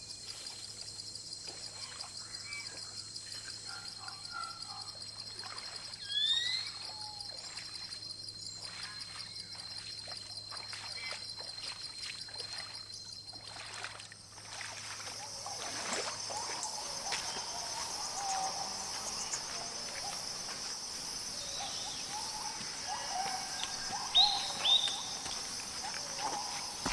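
A steady, high-pitched insect chorus that shifts to a slightly different pitch about halfway through, with scattered bird calls: a couple of short rising whistles about six seconds in and louder chirps near the end.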